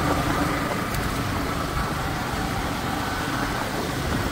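A motor vehicle under way on a rough road: its engine running steadily, mixed with road and wind noise.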